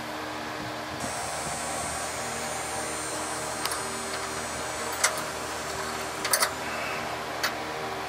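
A few short clicks and taps as a fish wire is worked into the holes of a truck's frame rail, the sharpest about five seconds in and a quick pair soon after, over a steady mechanical hum.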